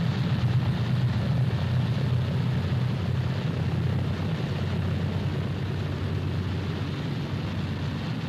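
Piston engines of a propeller aircraft running steadily, a low droning hum that eases off slightly toward the end.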